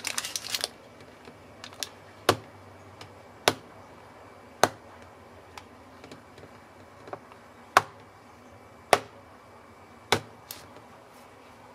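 A cake tin full of cheesecake batter being tapped down on a countertop to bring air bubbles out of the batter: a quick flurry of small knocks at the start, then about six sharp taps roughly a second apart, with a few fainter knocks between.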